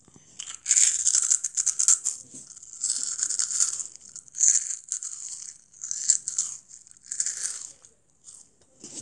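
A child chewing crunchy Jagalchi snack close to the microphone: crisp crunches in uneven bursts about once a second, loudest in the first two seconds.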